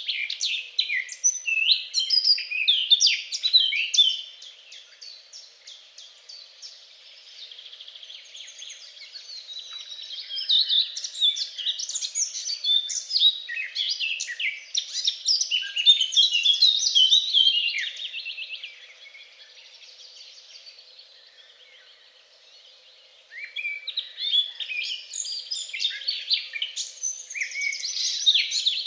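Several songbirds singing at once, with many fast overlapping chirps and trills. The song comes in three busy spells with quieter, sparser calling between them.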